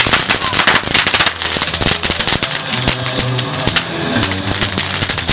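Loud rock music with sustained bass and guitar notes, overlaid by a dense, rapid crackle of sharp popping hits that sounds like firecrackers going off.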